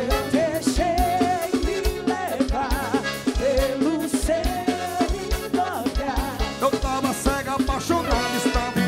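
Live forró band playing at full volume, with accordion and horn melody lines, electric guitars and a steady kick-drum beat.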